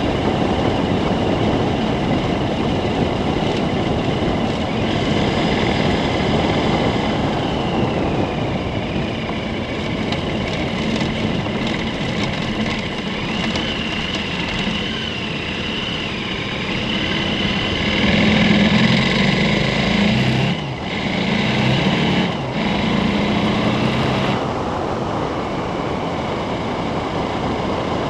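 KTM 1290 Super Adventure's V-twin engine running while riding a gravel road, mixed with steady wind and tyre noise on the camera microphone. The engine note comes up louder about two-thirds of the way through, then settles back.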